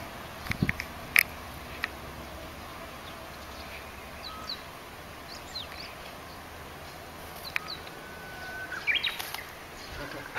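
Steady outdoor background hiss, with short bird chirps now and then and a few scattered clicks.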